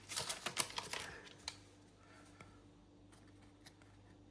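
Football trading cards and their foil pack wrapper being handled: a quick run of light clicks and rustles in the first second and a half, then it goes quiet apart from a few faint ticks.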